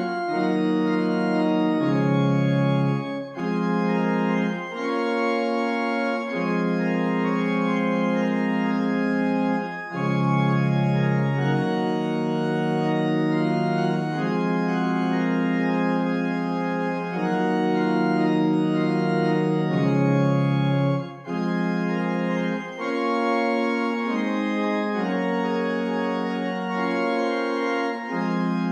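GrandOrgue virtual pipe organ, played on the manuals only with no pedals, playing a slow chant-style accompaniment in held chords. The chords change every second or two, with short breaks between phrases.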